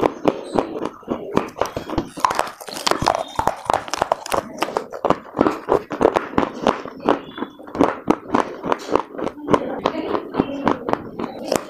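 Close-up chewing and crunching of dry white clay in the mouth: many irregular crisp crunches and crackles, several a second, without a break.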